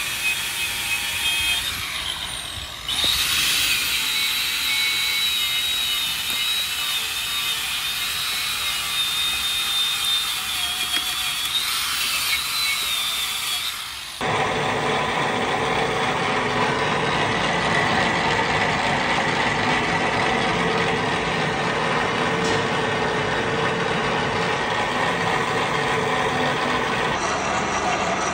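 Workshop power tools running: first a high whining machine with a steady tone, which gets louder about three seconds in, then an abrupt cut about halfway through to a different, lower, steadier machine noise.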